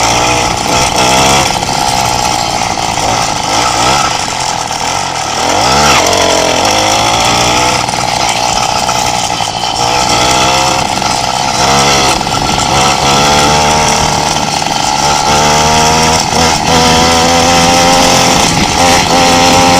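Small motorbike engine buzzing while riding, revving up and down with the throttle as the rider tries for wheelies; its pitch swoops sharply about six seconds in and climbs steadily near the end.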